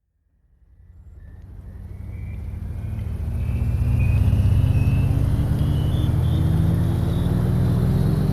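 Train running and picking up speed, its motor note and a high whine both rising slowly in pitch. It fades in from silence over the first few seconds.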